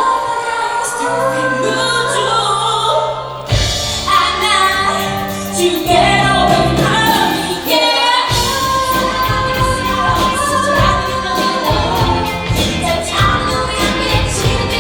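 Student rock band playing a ballad live, a female voice singing over it; the drums and bass fill in more densely about eight seconds in.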